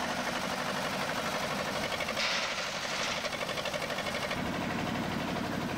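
Diesel engine of a wheeled excavator running steadily with a fast, even pulsing. About two seconds in, a brighter rushing noise comes in for about a second as the clamshell grab works over the wagon.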